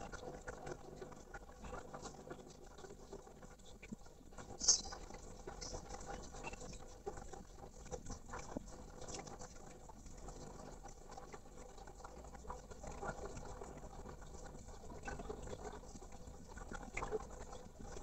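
Soft scratching and pattering from a caged poksay mandarin moving about its cage, with scattered light clicks and one short, sharp, high sound about four and a half seconds in; no song.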